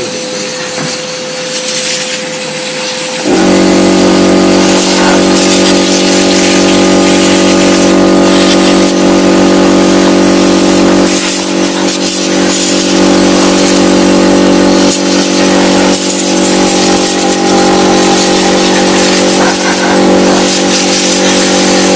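Compressed air hissing as dust is blown out of a desktop computer case. About three seconds in, a loud electric motor starts and runs steadily with a hum under the hiss.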